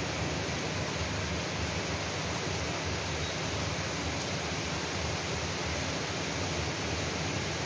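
Steady rain falling, an even wash of noise with no single drops or other events standing out.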